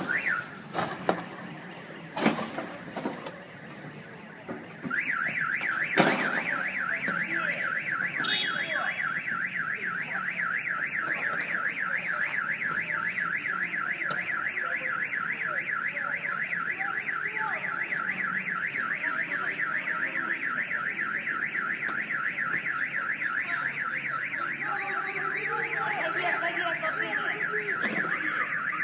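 A car alarm sounding a fast, steady warbling wail that starts about five seconds in. Before it there are a few sharp knocks.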